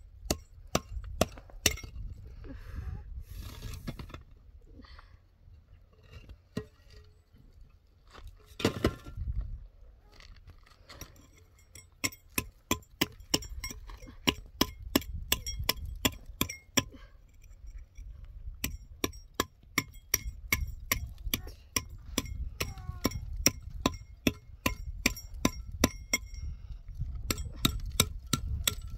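A hand tool striking hollow concrete blocks, chipping at the broken concrete: sharp clinking taps, a few at first with a couple of short scrapes, then quick even runs of about three taps a second from roughly the middle on, with brief pauses.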